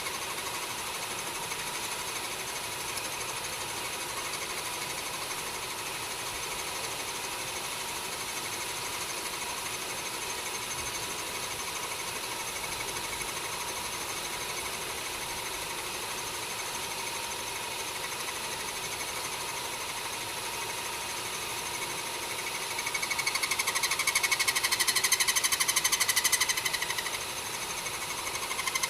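Homemade mini lathe running steadily, its motor giving a constant whine. About three quarters of the way through it turns louder and harsher for about four seconds, then drops back to the steady run.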